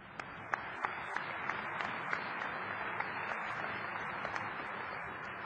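Convention audience applauding: a dense patter of many hands clapping that comes up at the start and eases a little near the end.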